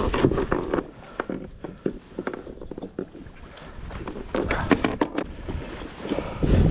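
Irregular knocks and taps on a fishing kayak's plastic hull and gear, with water and wind noise underneath, as a large yellowtail is handled aboard.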